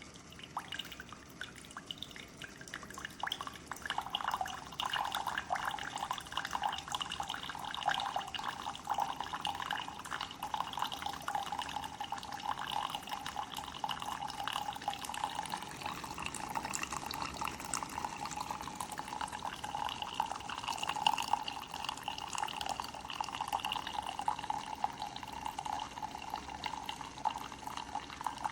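Keurig single-serve coffee maker dispensing a cup: a steady stream of hot coffee splashing and trickling into a mug. It starts about a second in and grows louder about four seconds in.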